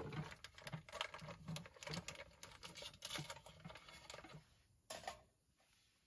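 A plastic packet crinkling as dry soup ingredients are shaken out of it into a metal pot: a busy patter of small light clicks and rustles. It stops about four and a half seconds in, with one more brief rustle near five seconds.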